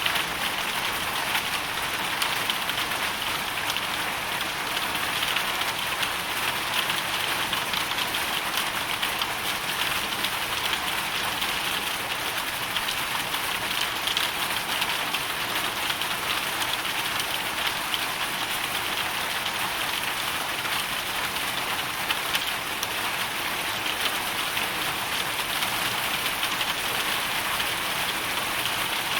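Hail storm: hail and rain falling steadily, a dense, even patter of countless small ticks with no break or change.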